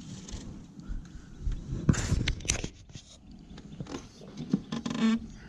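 Knocks and clatter of a long-handled landing net being picked up and handled in a small aluminum boat, with a louder noisy stretch about two seconds in.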